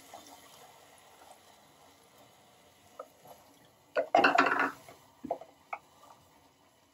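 Water sloshing in a plastic container as the leftover ground mango-coconut paste is rinsed out, about four seconds in, with a few light plastic taps before and after.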